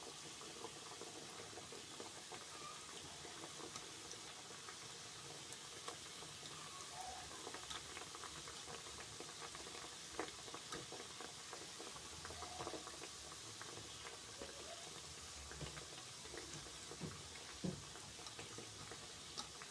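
Mini mandazi dough pieces deep-frying in hot oil: a faint, steady bubbling sizzle with scattered light clicks and taps.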